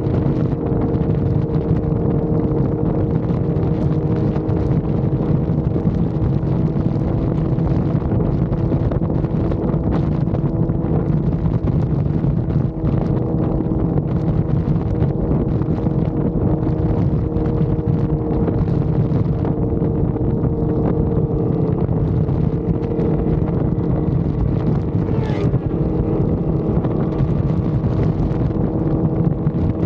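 Motorcycle engine running at a steady freeway cruise, its even drone unchanging, with wind buffeting the microphone.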